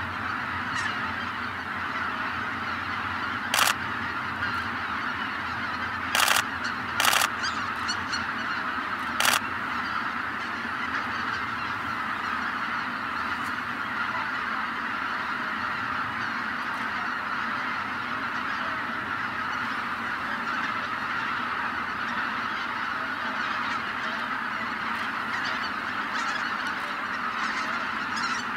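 A huge flock of greater white-fronted geese flying in to roost, calling continuously in a dense chorus of overlapping honks. Several brief sharp clicks stand out in the first ten seconds.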